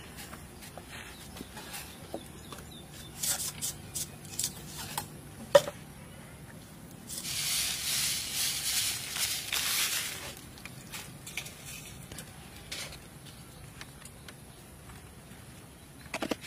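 Dry seasoning granules poured from above onto raw egg yolks in a liquid-filled pan, a hiss lasting about three seconds near the middle, with a few light clicks before it.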